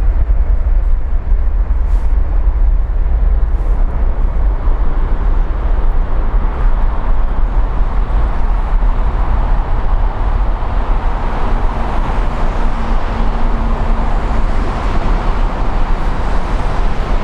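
Jet aircraft engine noise at an airport: a steady low rumble, with a broad rushing swell that builds to a peak about two-thirds of the way through.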